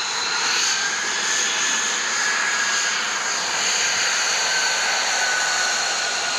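F-35B Lightning II's jet engine (Pratt & Whitney F135) running as the jet taxis past: a loud, steady rush with a high whine that rises a little at first, then slowly sinks in pitch as the aircraft rolls by.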